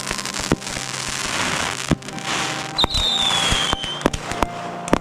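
Firecrackers going off in a bonfire: a rapid, irregular string of sharp pops over hissing, with a falling whistle about three seconds in.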